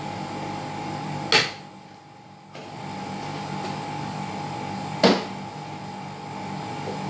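Two sharp knocks as spice jars and a kitchen cupboard are handled, one about a second in and one about five seconds in, over a steady background hum.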